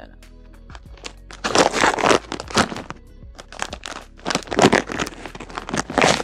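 Plastic snack pouch crinkling as it is pulled and torn at the top, in two rough bouts of about a second and a half and two seconds, over steady background music.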